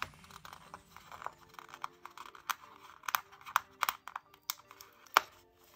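Sticker sheets and paper being handled and stickers peeled: irregular sharp clicks and crinkles, the loudest near the end, over soft background music.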